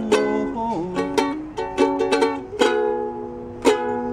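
A ukulele strummed and picked, a series of chords ringing out, with one chord left to ring for about a second before the next strum.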